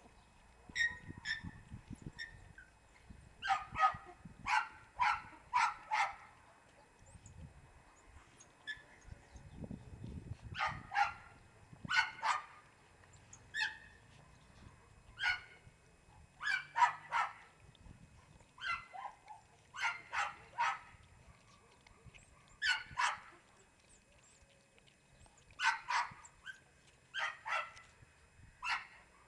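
Four-week-old Jagdterrier puppies giving short, high yips and squeaks while they jostle at a shared food bowl. Some come singly and some in quick runs of three to five.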